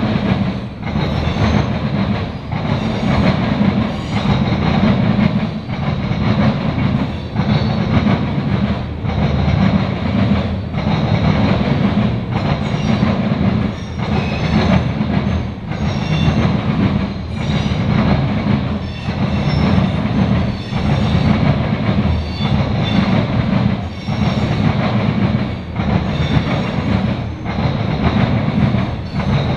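Covered hopper cars of a CSX freight grain train rolling past, with a steady rumble of wheels on rail broken by a regular clickety-clack as the car trucks pass over the rail joints.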